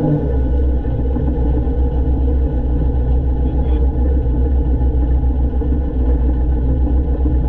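Diesel engine of a 1970s Poclain LC80 excavator running, a continuous low rumble that wavers unevenly in loudness; the owner believes the engine has a misfire or fueling problem.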